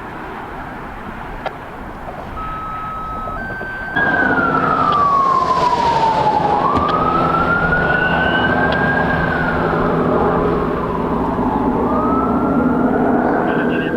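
Emergency vehicle siren, likely a responding fire apparatus, cuts in suddenly about four seconds in and wails slowly down and up in pitch over a heavy engine running.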